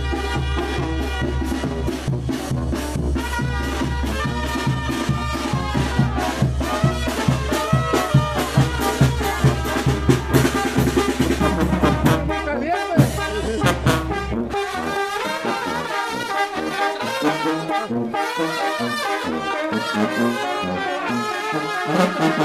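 Brass band music with trumpets and trombones playing. The deep bass underneath cuts out about two-thirds of the way through, and the horns play on.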